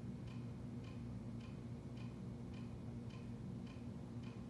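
Regular ticking, just under two ticks a second, over a steady low hum.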